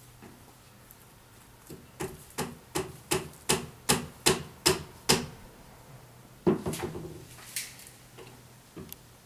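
Steady blows on wood: about nine sharp strikes, roughly two and a half a second, then a few looser knocks and a short high scrape.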